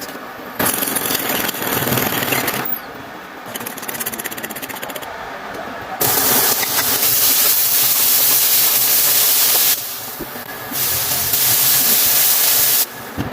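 Ampalaya (bitter gourd) frying in hot coconut oil in a pan, a steady sizzle. It jumps up and down in level at abrupt cuts, and is loudest from about six seconds in to near the end.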